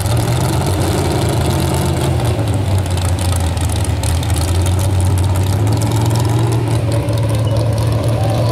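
Engine of a two-wheel-drive super stock pulling truck, a square-body pickup, idling as it rolls slowly past close by. The engine note is steady and low-pitched.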